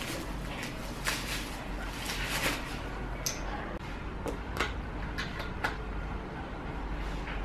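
Plastic wrap crinkling as it is peeled off a pram's metal axle rod. Then, from about three seconds in, a handful of sharp clicks and taps as the metal axle is fitted into a plastic wheel hub.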